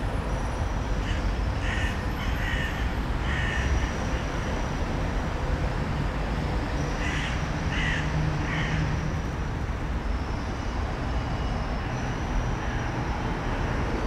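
A bird calling in two short series of repeated calls, about four and then three about five seconds later, over a steady low background rumble.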